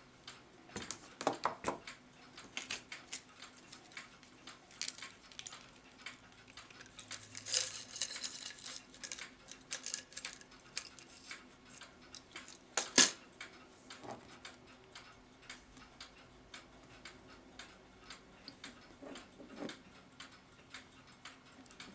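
Light metallic clinks and taps of a clock movement's brass plates, wheels and tools being handled as the movement is taken apart and a bushing is worked with a smoothing broach, with one sharp click about 13 seconds in.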